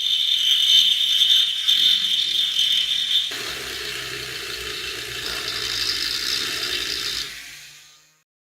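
Mechanical rattling and whirring, like a workshop tool at work. It changes character about three seconds in and fades away near the end.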